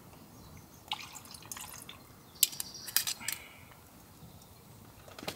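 A few light clinks and knocks of small hard objects. The sharpest, about two and a half seconds in, rings briefly.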